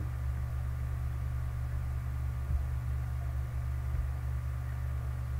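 Steady low electrical hum with a light hiss, with one faint click about two and a half seconds in.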